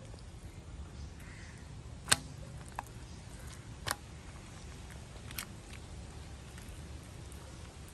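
A hand smearing thick, wet masala paste over tongue sole fillets on a banana leaf: a few short sharp wet clicks, the loudest about two seconds in, over a low steady rumble.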